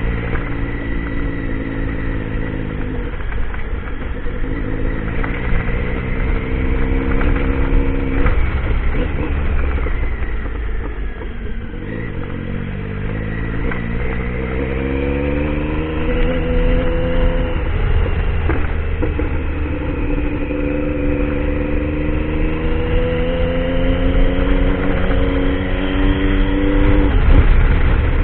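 Motorcycle engine under way off-road, the revs climbing and then dropping several times, as with gear changes and throttle on and off, over a heavy low rumble.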